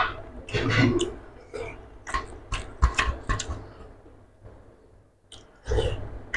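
Eating sounds: fingers mixing rice and curry on a steel plate, with chewing, heard as irregular wet clicks and smacks. About four and a half seconds in there is a short, quieter stretch.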